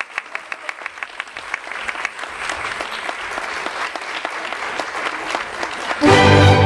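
Audience applauding a dance: clapping that thickens into fuller applause after a couple of seconds. Loud orchestral music comes in suddenly about six seconds in.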